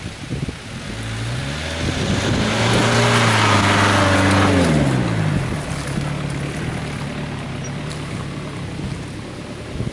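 Jeep Cherokee XJ engine pulling as the vehicle climbs through a woodland dip and drives past close by. Its note rises over the first couple of seconds and is loudest at the middle, with a rush of noise. It drops in pitch as the Jeep passes, then runs on more quietly.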